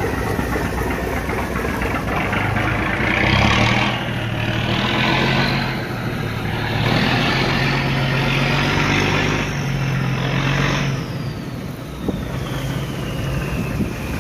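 Boat engine running, revving up and down with a rising and then falling whine, with swells of rushing noise in the middle.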